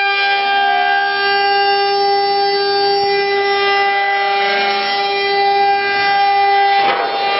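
Eight-spindle CNC wood router running, its spindle motors giving a steady high-pitched whine of several tones, with the hiss of the cutters in the wood beneath. A short rush of noise comes near the end.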